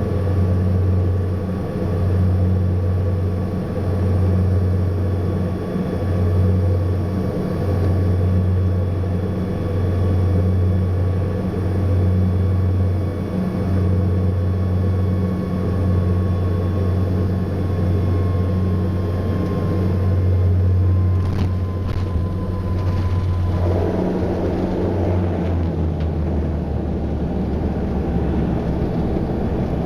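Saab 340 twin turboprop engines heard from inside the cabin, with a steady drone and a low propeller throb that beats about every two seconds under a faint, slowly falling whine. About two-thirds of the way through there are a couple of faint knocks, then the beating stops and a broader rushing noise takes over.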